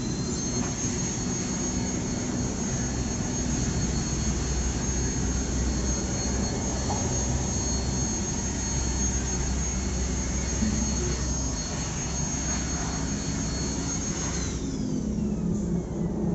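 Pressure washer running: a steady high-pitched motor whine over the hiss of the water spray. Near the end the motor shuts off and its whine falls away in pitch.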